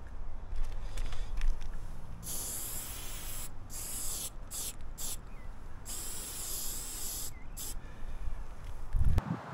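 Aerosol spray paint can spraying: one spray of about a second and a half starting about two seconds in, then several short bursts, and one more brief burst later on. A steady low rumble runs underneath, and a thump just before the end is the loudest sound.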